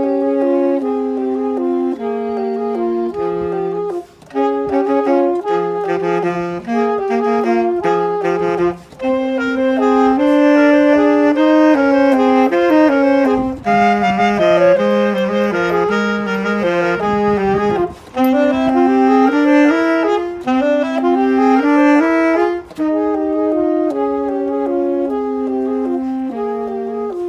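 A saxophone playing a solo melody with quick runs of notes, with short pauses between phrases.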